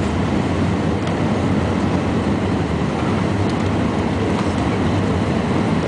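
Steady roar of a jet airliner heard from inside the passenger cabin during landing: engine and airflow noise with a low rumble and a few faint clicks.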